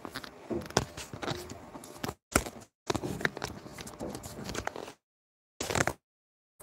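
Handling noise from a phone being moved and adjusted: a run of irregular knocks, taps and rubbing close to the microphone. The sound drops out to dead silence several times, mostly in the second half.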